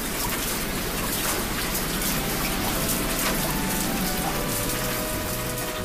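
Heavy hail (small ice pellets, arare) pelting wet pavement: a dense, steady hiss of falling ice with many small ticks of pellets striking. Soft background music comes in faintly partway through.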